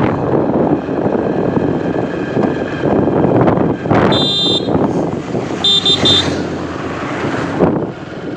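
Steady rumble of a passenger train running, heard from inside a coach. Two short high-pitched toots sound about four and six seconds in.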